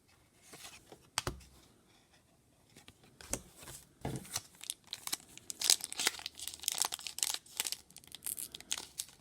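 Foil Pokémon card booster pack being torn open and crinkled by hand, in scattered crackles at first and then a dense run of tearing and crinkling from about three seconds in. The pack is hard to open.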